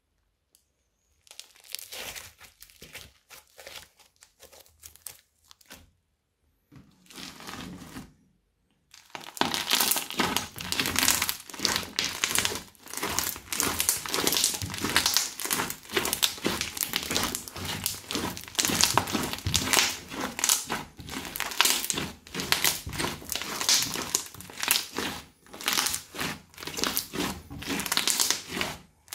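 Crunchy bead-studded slime being squeezed and kneaded by hand, giving dense crackling and crunching. The crackle is soft and sparse for the first several seconds, then turns loud and almost continuous about a third of the way in.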